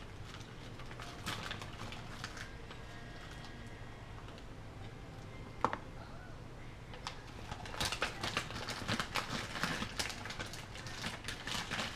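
Quiet handling noise from raw chicken thighs and a plastic cutting board: scattered light clicks and soft crackles, with one sharp click about five and a half seconds in, and a denser run of crackling over the last four seconds. A low steady hum runs underneath.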